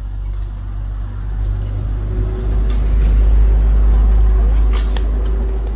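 A motor vehicle's engine rumbling low, growing louder toward the middle and then fading away, with a couple of sharp clicks.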